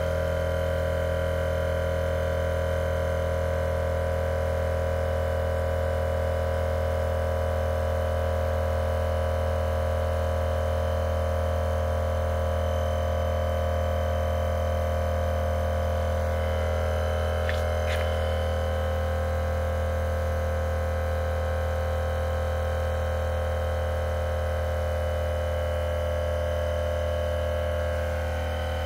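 Procraft LK400 twin-cylinder 12 V tyre compressor running steadily while inflating a car tyre, a constant low hum with its pitch sagging slightly in the second half. A couple of light clicks come about two-thirds of the way through.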